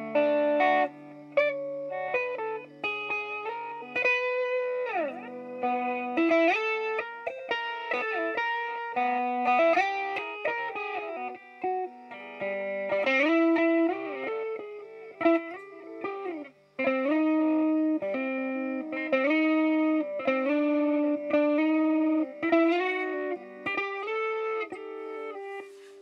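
Electric guitar played through a BOSS DD-8 Digital Delay pedal set to reverse mode: a continuous melody of single notes and chords, with the delay's reversed echoes under them, and a falling slide about five seconds in.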